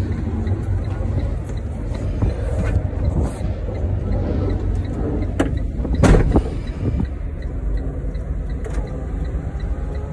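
Truck engine running, heard as a steady low rumble inside the cab, with a loud knock about six seconds in and a few lighter clicks.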